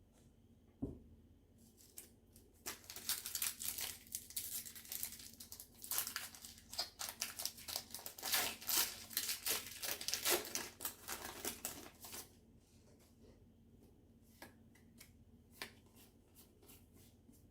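A foil Pokémon trading-card booster pack being torn open and crinkled for about nine seconds, after a single soft thump about a second in. After that come a few light clicks as the cards are handled.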